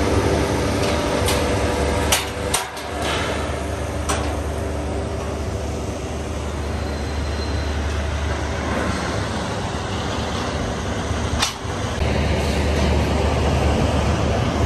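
Outdoor steel yard noise: a steady low rumble with a few sharp metallic clanks of steel rebar being handled, mostly in the first few seconds.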